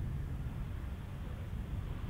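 Low, steady rumble of an Airbus A220-300's Pratt & Whitney PW1500G geared turbofan engines as the jet rolls along the runway during a touch-and-go.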